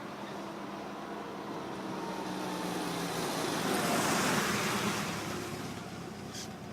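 A road vehicle passes by: its sound swells to its loudest about four seconds in and then fades. Under it runs a steady low engine hum.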